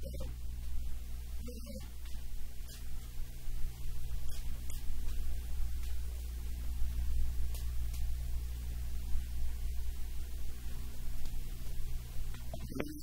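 Steady low electrical hum, with occasional faint clicks of wooden chopsticks against a ceramic rice bowl as rice is scooped from it.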